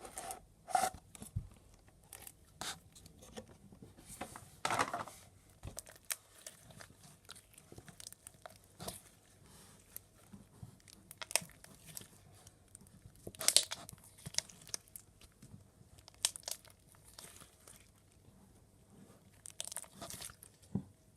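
Glittery slime being poked with a finger inside a plastic container: irregular soft crackles, squishes and clicks, a few of them louder.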